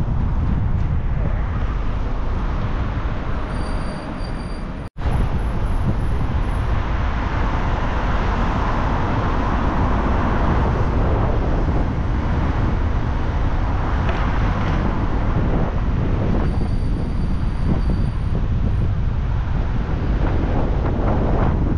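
Steady rush of road and wind noise from a car being driven slowly along a town street. The sound drops out for an instant about five seconds in.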